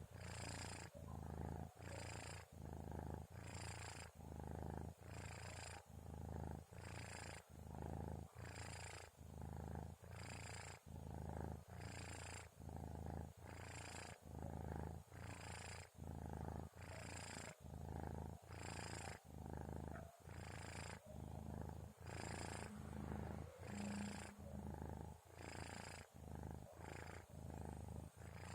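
Sleeping kitten's purring rumble, which the owner calls snoring. It rises and falls with each breath, about one breath every second and a half, with a breathy hiss on each cycle.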